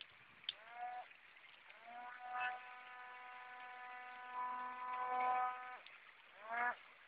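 Electric motor and fan of a small homemade RC hovercraft spinning up with a rising whine, first in a short blip, then held at one steady pitch for about four seconds, with another short rising burst near the end.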